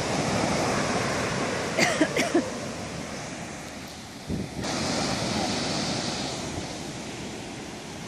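Rough ocean surf breaking and washing up the beach, a steady rushing with wind buffeting the microphone; the hiss of a wave's wash swells about five seconds in. A few short high cries sound about two seconds in.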